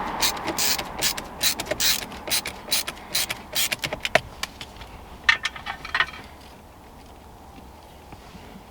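Hand ratchet clicking in quick, irregular bursts as a screw is run in, stopping about six seconds in.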